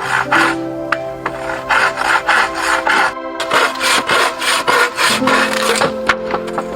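A hand tool scraping back and forth on wood in quick, even strokes, about three a second, with background music.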